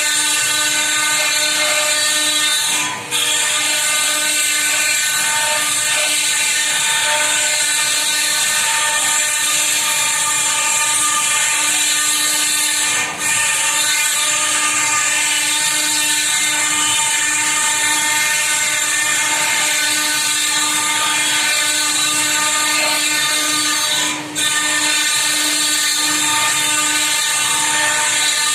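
CNC router spindle running steadily as it carves stone, a loud high-pitched whine that dips briefly three times.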